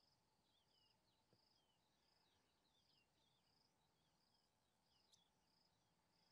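Very faint grassland ambience: an insect chirping in a steady pulse a little faster than once a second, with faint short falling chirps between, and one small click about five seconds in.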